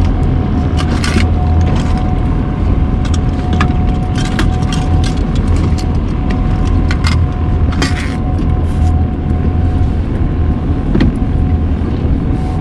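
Fishing boat's motor running steadily under way, a constant low drone with a steady whine above it and scattered sharp clicks.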